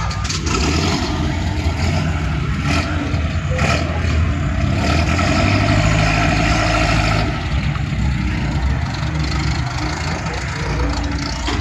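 Car engine running, building up through the middle and easing off about seven seconds in.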